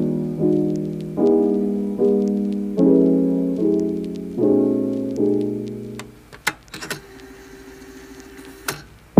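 Background piano music: soft chords struck about every 0.8 seconds, each fading away, until the music dies down about six seconds in. A few faint clicks follow in the quiet.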